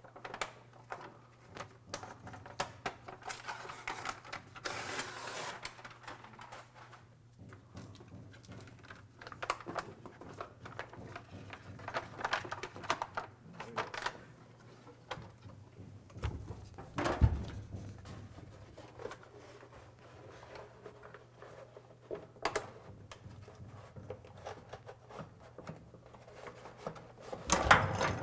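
Handling noise from fitting sound-deadening mat: a paper template and a foil-faced mat sheet rustling and crinkling as they are pressed into place, with scattered taps and two louder knocks, one about 17 seconds in and one near the end. A steady low hum runs underneath.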